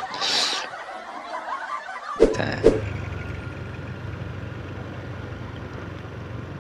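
Low, steady rumble of a truck engine running with street noise, starting after two short sharp sounds about half a second apart some two seconds in.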